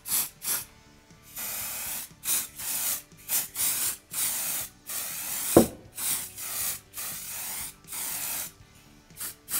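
Aerosol can of release agent spraying onto a rifle's barreled action in a dozen or so short hissing bursts of varying length, laying a coat that keeps the Acraglas bedding compound from sticking. A single sharp knock about halfway through is the loudest sound.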